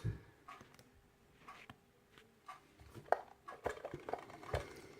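Irregular light clicks and taps of a lock and small metal lock-picking tools being handled and set up, more frequent in the second half.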